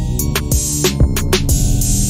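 Electronic background music with a steady drum-machine beat over sustained bass.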